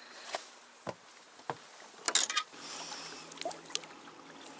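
Scattered light clicks and knocks of fishing gear being handled in a small boat, with a louder quick cluster of clicks about two seconds in. A faint steady low hum comes in about halfway through.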